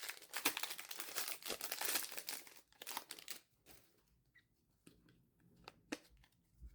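Crinkling of a trading-card pack's wrapper for about three and a half seconds, then a few faint taps as the cards are handled.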